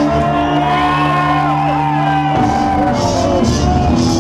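Loud live electronic backing music of a horrorcore rap set over a club PA: a held synth chord that shifts a little past halfway, then hissing cymbal-like hits near the end, with shouts from the crowd.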